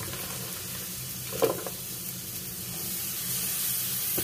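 Eggs and bitter gourd slices sizzling in hot oil in a frying pan. There is one sharp knock of a utensil about a second and a half in. The sizzle grows louder about three seconds in as the gourd goes into the pan.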